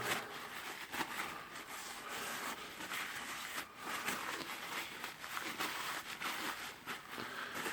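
Faint handling noises: scattered light clicks and rustles as rotary-hammer parts, the tool holder and its clutch gear, are handled on the bench.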